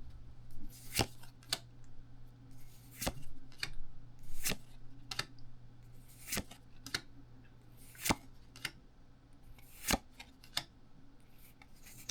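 Pokémon trading cards being handled and flipped through one at a time: a series of short, crisp snaps and swishes, roughly one a second, over a faint steady low hum.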